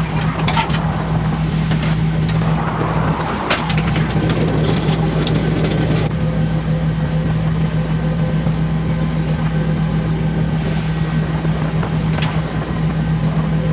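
Steady low drone of a fishing boat's engine and deck machinery hauling lines, with clanking and rattling of metal and chain through the first half.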